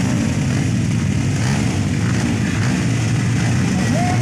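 Several motocross bikes' engines running together while lined up at the start line, a loud, steady mix of engine sound.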